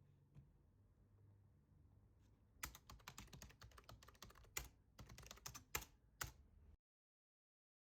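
Typing on a computer keyboard: a few faint clicks at first, then a run of rapid keystrokes from about two and a half seconds in, which cuts off to dead silence near the end.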